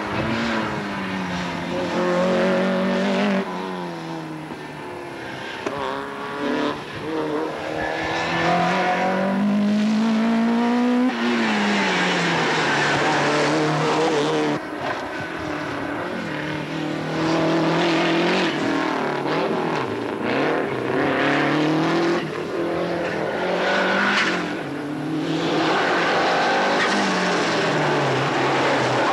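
Rally car engines revved hard on a tarmac stage, pitch climbing and dropping again and again through gear changes and braking, with a Lancia Delta Integrale among the cars near the end.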